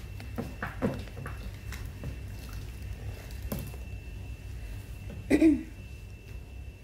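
Slime being squeezed and kneaded by hand in a glass dish: soft, faint squishing and small sticky ticks. A brief voice sound about five seconds in is the loudest moment.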